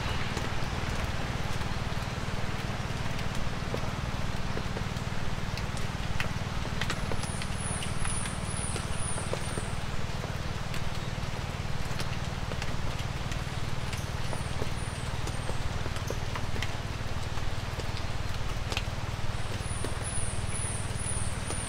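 Light rain falling in woods: a steady hiss with scattered small drips over a low, steady rumble. Three short runs of high, falling chirps come through it, a few seconds apart.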